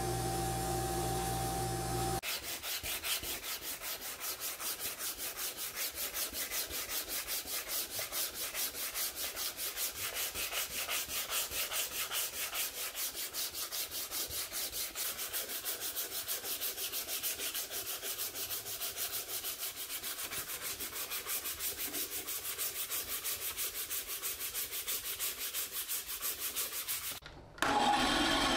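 Hand sanding of a wooden airgun stock with sandpaper: quick, even back-and-forth strokes, about three a second. It is preceded by about two seconds of a belt grinder's motor running and followed, just at the end, by a bandsaw running.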